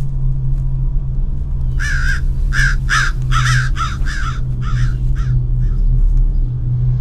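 A bird cawing repeatedly, about nine short calls over some four seconds, starting about two seconds in. A steady low drone runs underneath.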